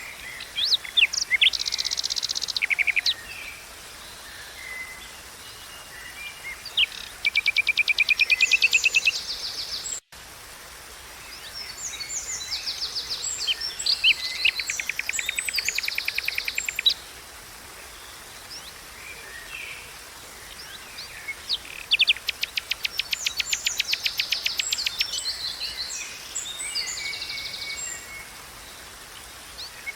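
Songbirds singing in repeated bouts of chirps and fast, rattling trills, several phrases overlapping, over a steady hiss of flowing water.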